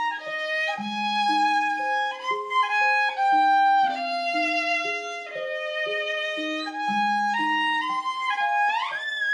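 Solo violin playing a melody from sheet music, one bowed note after another in small steps, with a quick slide up in pitch near the end.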